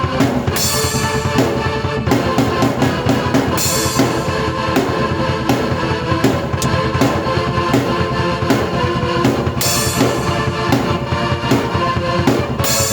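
Drum kit and keyboard played together in a steady rock groove, with bass drum and snare keeping the beat under sustained keyboard chords. Cymbal crashes land about half a second in, near four seconds and near ten seconds.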